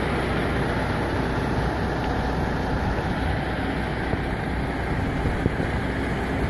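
MAN TGX 540 truck's diesel engine idling steadily, a continuous low rumble.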